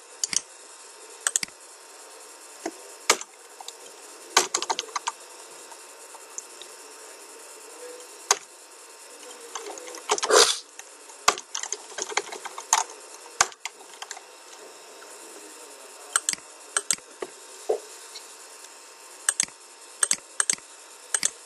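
Computer keyboard and mouse clicking in scattered, irregular taps over a steady faint hiss.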